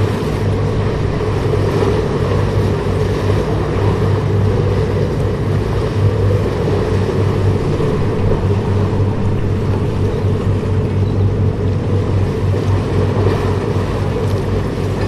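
Steady low rumble of a large ship's engines, with a constant droning hum and no change in pace.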